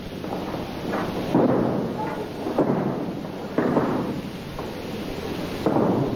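Repeated heavy thuds of bodies landing on the mat as aikido partners are thrown and take their falls, a thud about every one to two seconds.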